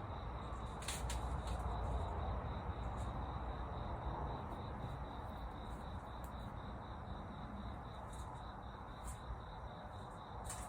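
Insects trilling steadily, like crickets, over a low steady rushing hiss, with scattered short sharp clicks.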